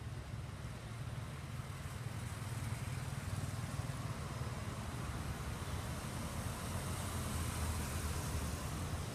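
A motor vehicle engine running steadily with a low hum, growing a little louder in the second half.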